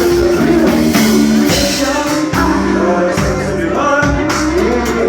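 Music with a singing voice over a band with a steady beat.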